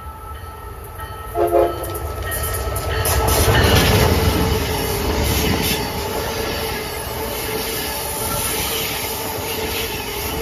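Amtrak Acela Express high-speed trainset approaching and passing at speed. It gives a short horn toot about one and a half seconds in, then goes by with a loud rush of noise and wheel clatter that peaks a few seconds later and carries on as the cars stream past.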